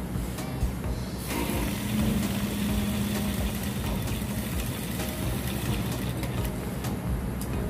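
Industrial sewing machine running steadily, stitching along the edge of the fabric, the sound filling out about a second in.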